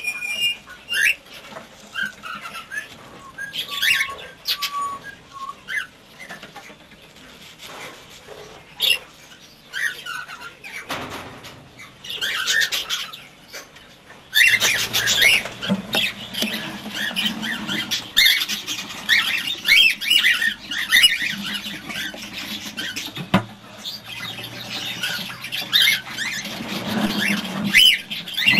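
Cockatiels in the nest giving many short chirps and squeaks, with a few brief whistled notes. The calling gets denser and louder about halfway through.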